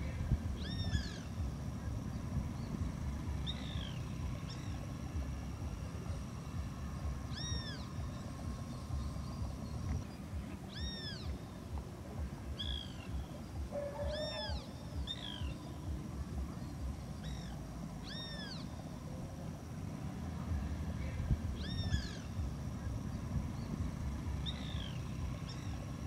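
An animal giving short, arched mewing calls, about a dozen of them spaced every two to three seconds, over a steady low rumble.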